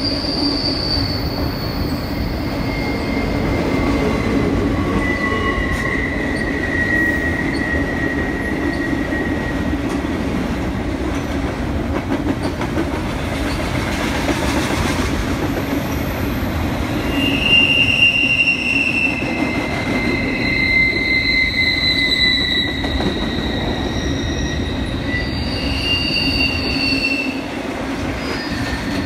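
Double-stack container cars of a CN freight train rolling past with a steady rumble of wheels on rail. High-pitched wheel squeal comes and goes as the wheels work through the curve.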